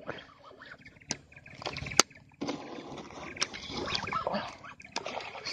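Scattered clicks and knocks from a fishing rod and spinning reel being handled close up in a small boat, with a sharp click about two seconds in.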